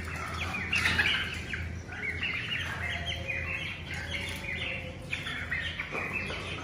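A flock of zebra finches chattering in an aviary: many short, overlapping chirps from several birds at once, without pause.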